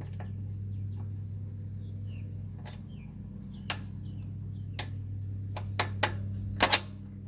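Light metal clicks and knocks from a lowering link and bolt being worked into place on a quad's front A-arm, the loudest coming in a quick cluster near the end, over a steady low hum.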